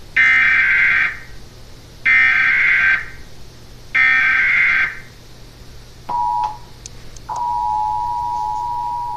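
Emergency Alert System header and attention signal. Three one-second bursts of SAME digital data sound as harsh warbling screeches, evenly spaced. Then the steady two-tone attention signal (853 and 960 Hz) starts about six seconds in, cuts out after half a second, and starts again a second later, holding steady.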